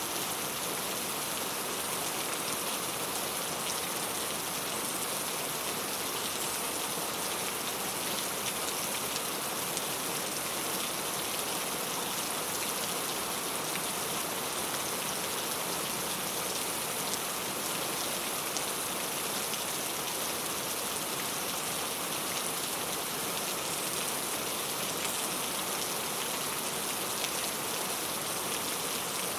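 Steady rain falling on a clay tile roof: an even hiss of rain with many fine drop ticks, unchanging throughout.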